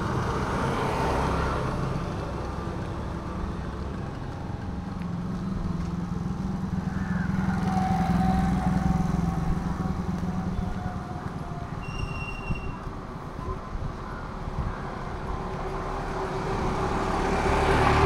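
Road traffic noise: engines and tyres of cars and trucks passing by, getting louder as vehicles go past about halfway in and again near the end.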